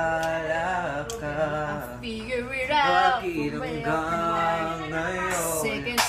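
A male and a female voice singing a pop melody, lines gliding and breaking between phrases.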